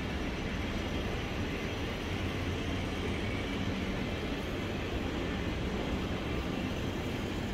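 Steady background rumble of urban traffic and ambient noise, even and unbroken.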